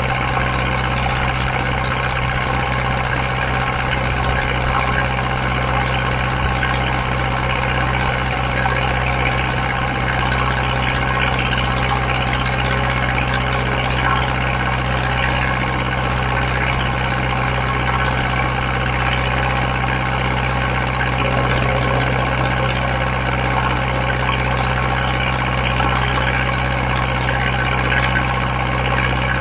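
Zetor 7011 tractor's 3.6-litre four-cylinder diesel running at a steady speed while the tractor drives slowly, heard from the driver's seat beside the exhaust stack.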